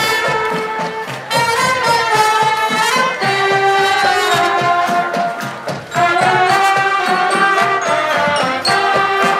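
A marching band playing a tune, a melody of held notes.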